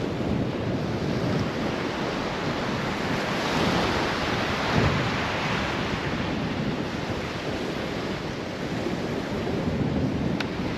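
Ocean surf washing onto a beach, with wind rushing across the microphone; the wash swells for a few seconds around the middle.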